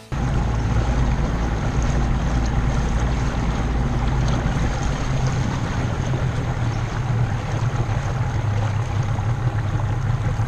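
A bay boat's outboard motor running steadily as the boat moves along, a low even hum under the rush of water and wind on the microphone.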